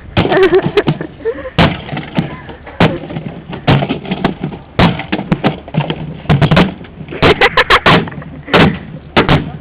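A refrigerator being smashed apart, struck again and again in hard, irregular blows that crack and clatter its casing, with several quick blows in a row near the end.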